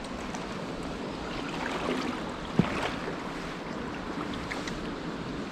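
Steady rush of a fast-flowing river, with a single sharp knock about halfway through.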